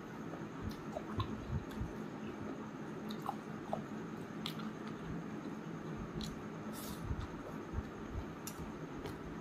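Close-up chewing and wet mouth sounds of a person eating rice and chicken curry by hand, with soft squelches as fingers mix the food on the plate and scattered small clicks, over a faint steady low hum.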